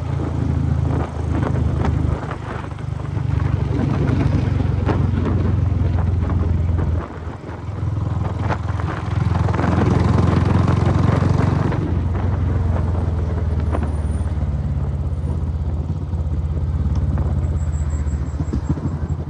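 Royal Enfield Bullet 500's single-cylinder four-stroke engine and exhaust running hard on the road, a deep, steady note with a brief dip about seven seconds in. Near the end it slows to a distinct, evenly spaced thump.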